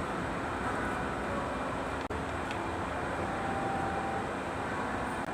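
Kubota Z751 two-cylinder diesel engine running steadily.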